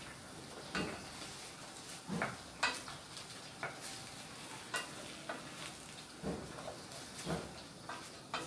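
Wooden spatula stirring shrimp in a stainless steel frying pan: irregular scrapes and knocks against the pan over a steady sizzle of the buttered shrimp cooking.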